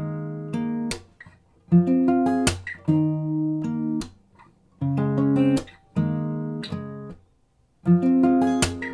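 Background music: acoustic guitar strummed in short repeating phrases, with sharp percussive hits marking each phrase.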